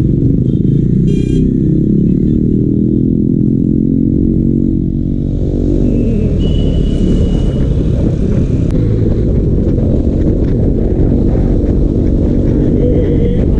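KTM Duke 250 motorcycle's single-cylinder engine running while riding in traffic, its pitch easing down about four to five seconds in. It then gives way to a steady rush of wind and road noise.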